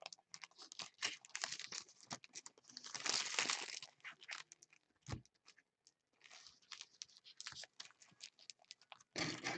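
Foil trading-card pack wrapper being torn open and crinkled in the hands: a run of short crackles and rustles, with a longer tearing rustle about three seconds in and another a little past six seconds.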